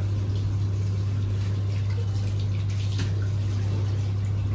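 Water running and dripping into a plastic bathroom washbasin as someone rinses at it, over a steady low hum.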